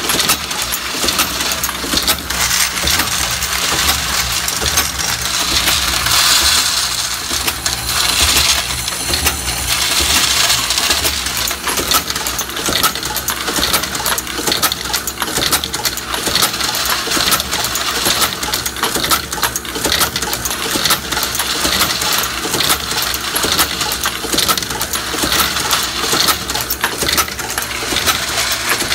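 Camdex automatic ammunition machinery running, with brass cartridge cases clinking and clattering continuously over a steady motor hum.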